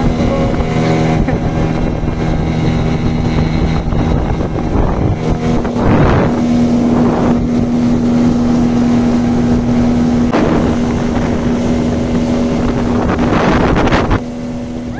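Outboard motor driving a small aluminium boat at speed, running with a steady tone, with wind buffeting the microphone and several brief rushing swells of wind and water. The sound drops a little in level near the end.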